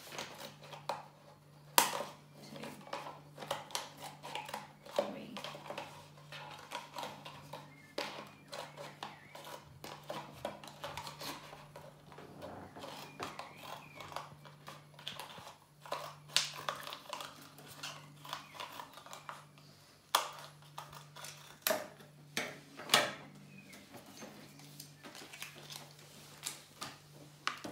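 Scissors cutting down a thin plastic tub, giving irregular sharp snips and crackles of the plastic, with a faint steady low hum underneath.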